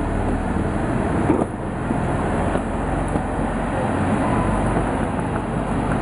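Steady low rumble of engines and road traffic around a rail yard, with a short knock about a second and a half in.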